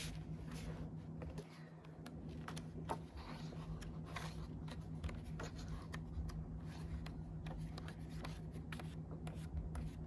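Pages of a coloring book being flipped by hand: paper rustling in many quick soft flicks and taps, over a low steady hum.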